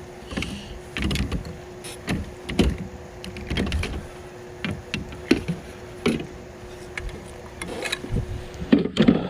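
Irregular knocks and clicks of gear being handled in a plastic fishing kayak, over a steady low hum that cuts off near the end.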